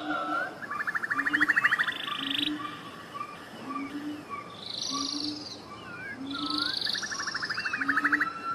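A backing track of frog and bird sounds: two rattling frog-like trills, chirp-like swoops and short high bursts over short low notes repeating about once a second in an even, looped pattern.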